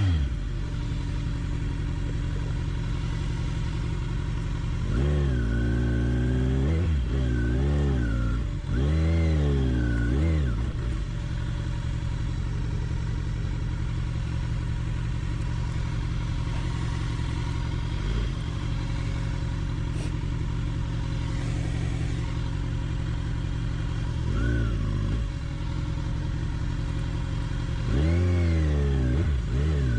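Kawasaki Ninja 1000's inline-four engine pulling at low revs, with throttle blips that rise and fall in pitch several times in the first third, once again after about three-quarters, and once near the end. The bike is crawling up a steep track of loose, rounded rocks where the tyre keeps catching on ridges and losing traction.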